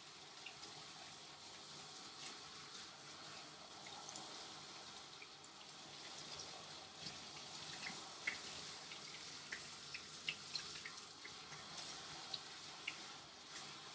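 Water spraying from a handheld grooming-tub sprayer, rinsing a standard poodle's wet coat, a steady soft hiss. Scattered small splashes and drips come more often in the second half.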